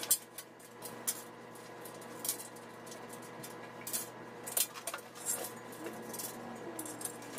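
Loose steel bolts, washers and nuts clinking as hands sort through them and set them on a sheet-steel stand panel: a string of separate small clicks and knocks.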